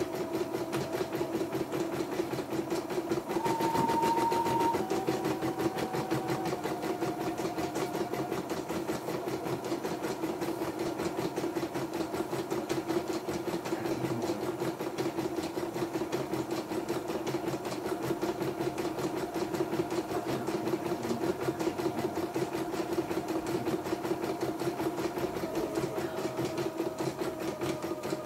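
YOKO portable computerized embroidery machine stitching a design: a rapid, even run of needle strokes over the steady hum of its drive. A faint tone beneath it steps in pitch a few times.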